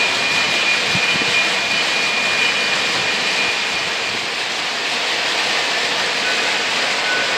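Lionel O gauge model trains running on three-rail track: a steady rolling rush of metal wheels and electric motors, with a thin high whine that fades out about halfway through.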